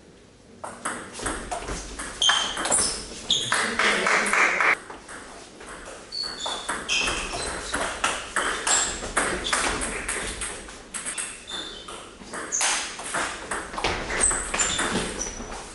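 Table tennis ball clicking in quick succession as it strikes the bats and the table during doubles rallies, with short high squeaks of shoes on the hall floor between strokes.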